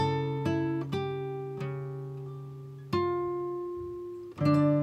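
Background music: slow acoustic guitar, single plucked notes and chords each ringing out and fading, with stronger chords struck about three seconds in and again near the end.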